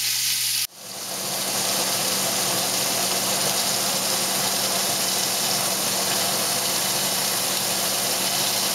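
Cubes of meat sizzling in hot oil in a stainless steel pot as they are browned and stirred with tongs, a steady hiss over a faint low hum. The sound cuts out sharply about a second in and fades back within a moment.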